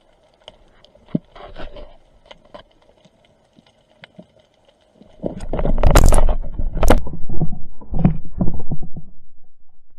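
Underwater sound: faint scattered clicks, then from about five seconds in a run of loud thumps, knocks and rumbling as a large fish thrashes against the camera housing.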